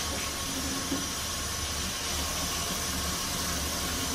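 Water running steadily from a tap while hands are washed under it.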